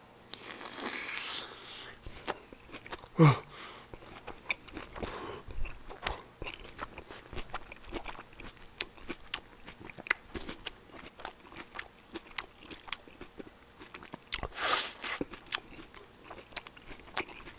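Close-miked chewing of a mouthful of rice with aged kimchi (mukeunji) from braised chicken: many small wet mouth clicks and smacks throughout. A brief falling sound about three seconds in is the loudest moment.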